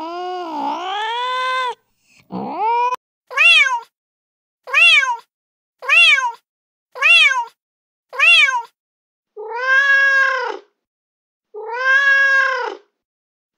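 Recorded domestic cat meows played from a cat-sound app. A long wavering meow ends about two seconds in, then comes a short rising call, a run of five short, identical sharp meows about a second apart, and near the end two longer drawn-out meows.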